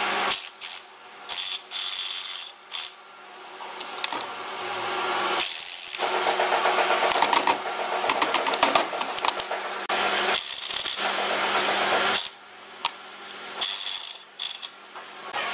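Red cordless impact driver rattling bolts loose from a cast gearbox housing. It runs in several short bursts, with one longer run of about four seconds in the middle.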